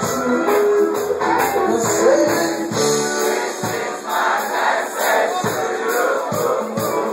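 Live reggae band playing, with voices singing over it.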